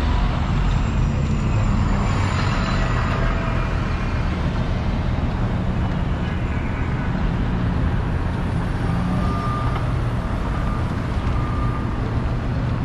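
Busy city street traffic: a steady rumble of cars, trucks and buses passing, with a few faint, brief high tones around nine and eleven seconds in.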